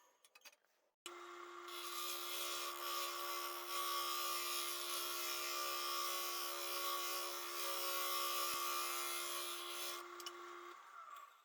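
Wood lathe running with a steady hum while a gouge hollows the inside of an epoxy-resin-filled wooden bowl blank, giving a loud scraping hiss of cutting. It starts about a second in and stops near the end.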